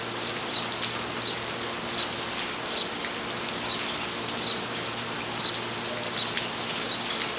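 Steady rain falling, an even patter. A short high chirp repeats about once a second.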